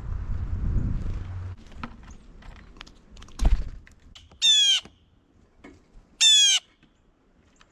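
Two loud bird calls at a feeder, each about half a second long and about a second and a half apart. Before them come a low rumble in the first second and a half and a single thump.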